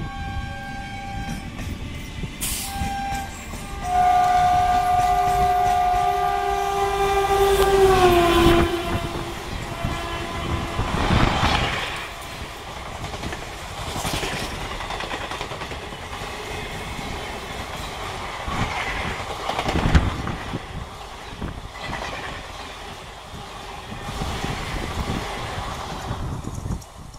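A WAP-4 electric locomotive's horn sounds in short toots, then in one long blast from about 4 s that drops in pitch near 8 s as the locomotive passes. After it, the coaches of an express train rush by at speed, their wheels clattering over the rails, until the last coach passes near the end.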